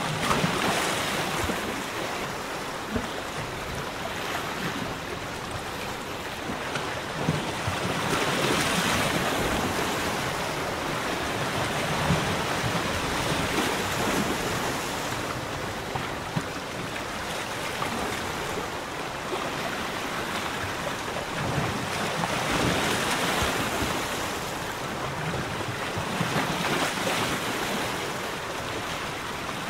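Small waves in the Ria Formosa lagoon lapping and splashing against a pontoon. The wash rises and falls every few seconds.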